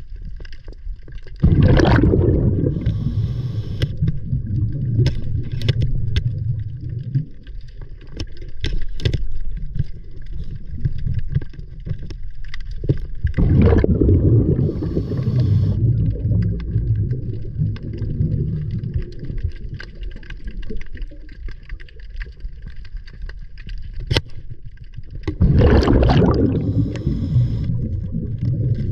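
Ocean water rushing and sloshing in a steady low rumble, with three louder surges about twelve seconds apart.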